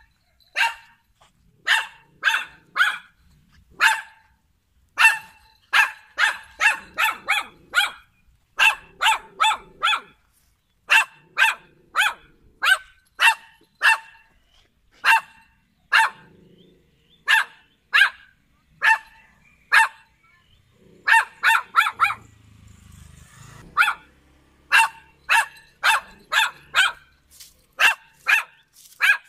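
Small poodle barking over and over: short, high-pitched yaps, often in quick runs of two to five, with brief pauses between runs and one longer lull a little past the two-thirds mark.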